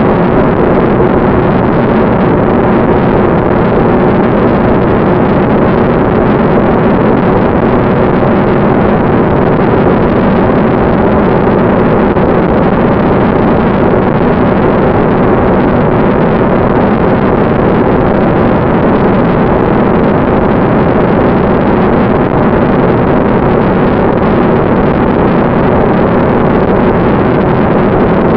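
Ducted fan of an FPV model jet running at a steady throttle: a constant hum with a steady whine over loud air rush, with no change in pitch throughout.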